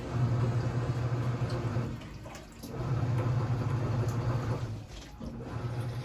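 Sharp ES-FA650P top-load washing machine working a load in water: a low motor hum comes in stretches of about two seconds with short pauses between them, over a steady swish of water in the tub.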